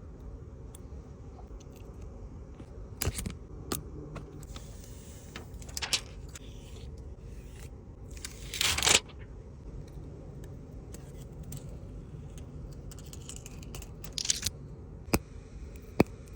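Small handling sounds of smartphone repair: scattered sharp clicks and taps of a phone and tools, with one brief rasping, tearing-like noise about halfway through, over a low hum.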